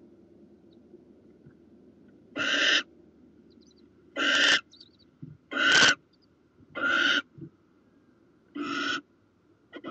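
Barn owl giving about six short, rasping hisses, one every second or two.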